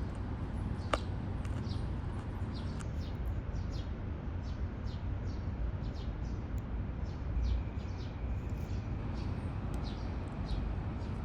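Small birds chirping, many short high calls scattered irregularly, over a steady low rumble. A single sharp click comes about a second in.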